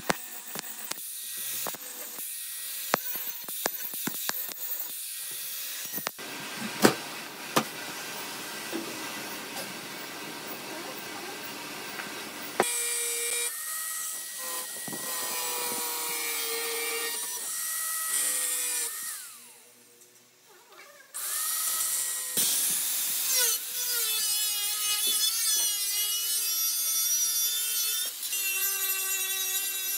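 Workshop tool work: scattered clicks and scraping for the first dozen seconds, then a power tool running with a steady whine. The whine drops away for about a second around twenty seconds in and then resumes.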